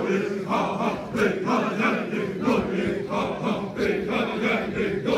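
Many Xavante men chanting together in unison, a short call repeated steadily in time about twice a second.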